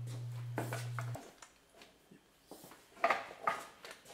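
A few short metallic clinks and knocks as a large socket is fitted onto the 35 mm axle nut on the CV axle stub, with a cluster of them near the end. A steady low hum cuts off about a second in.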